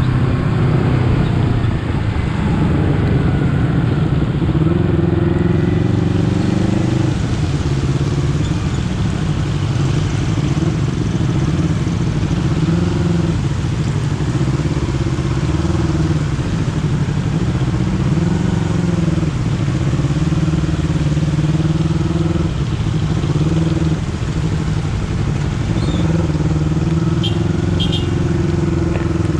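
Honda CBR250RR motorcycle's parallel-twin engine running under way, its note repeatedly dropping and climbing again as the throttle and gears change.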